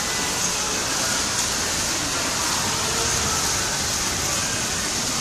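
Torrential cloudburst rain: a steady, even hiss of heavy rain and running water.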